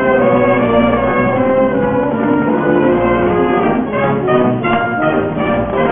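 High school marching band playing a fight song, brass-led (trumpets, trombones, euphonium, sousaphone) with flutes and saxophone, mixed from separate home recordings. Held chords give way to short, punchy chords about four seconds in.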